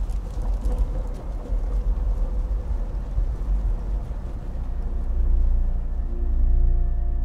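A deep, low rumbling sound bed from a film soundtrack, with held music notes coming in about five seconds in and growing louder.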